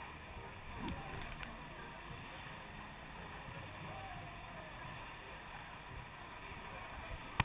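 Steady rush of water running down a water slide's runout, with faint voices in the background.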